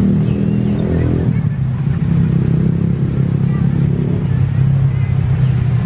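Diesel engine of a Prameks diesel multiple unit running as the train rolls slowly toward the station; its note drops back about a second in, then holds steady.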